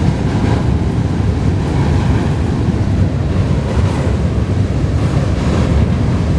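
Freight train of tank cars rolling past over a steel drawbridge: a steady low rumble, mixed with wind on the microphone.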